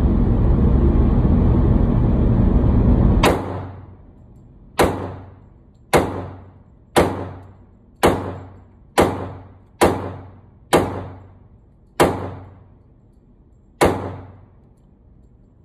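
Ten shots from a Glock pistol, about one a second with a couple of slightly longer gaps, each echoing briefly off the indoor range walls. A loud steady noise fills the first three seconds and cuts off at the first shot.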